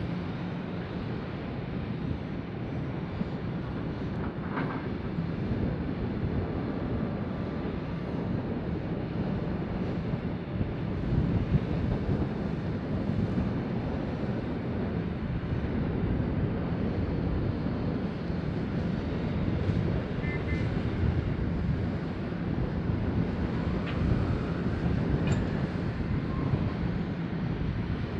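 Large diesel mining equipment running steadily: a Hitachi 870 excavator loading Caterpillar 777 haul trucks, with a continuous low engine drone and a few faint knocks.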